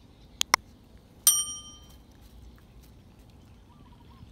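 Subscribe-button animation sound effects: a quick double mouse click, then a single bright bell ding that rings out for about half a second.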